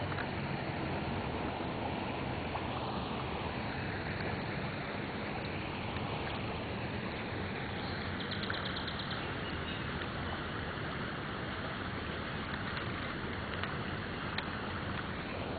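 Steady rushing of a swollen creek running high and fast.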